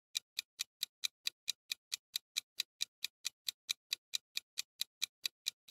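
Countdown-timer sound effect: fast, even clock ticks, about four and a half a second, counting down the answer time.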